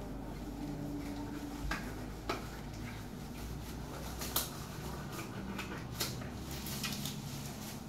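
Medical gloves being pulled onto the hands: rustling with a few sharp snaps, the loudest a little past the middle, over a steady low hum.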